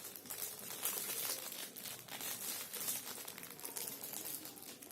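Plastic wrapping crinkling as it is handled and pulled open around a hair trimmer, a continuous dense crackle.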